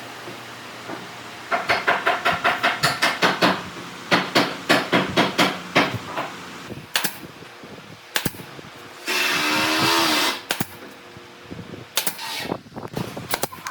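Workshop tool noise: two quick runs of sharp strikes, about five a second, then scattered single knocks and a brief burst of a running machine lasting about a second and a half.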